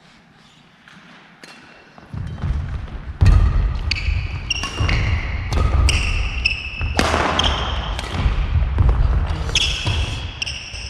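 Badminton rally on a wooden gym floor, starting after about two seconds of quiet. Rackets strike the shuttlecock with sharp clicks, sneakers squeal repeatedly on the boards, and footfalls thud.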